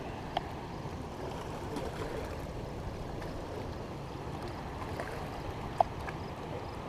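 Steady rushing of river water below a dam, washing against the rocky bank, with a couple of faint clicks.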